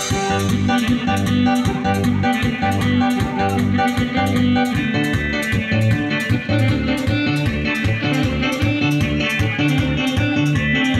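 Dance music with a steady, even beat, playing without a break.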